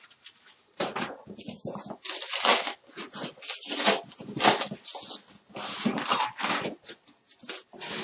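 Foam packing sheets rustling and scraping against a cardboard box as they are pulled away from it, a string of short irregular bursts starting about a second in.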